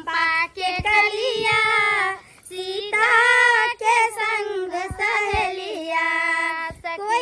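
Women singing a Maithili wedding folk song about Sita going with her friends to the flower garden, in high voices held on long, wavering notes with short breaks between phrases.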